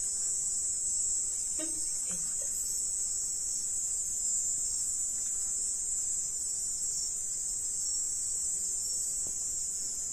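Steady high-pitched insect chorus, a continuous night trilling that does not change.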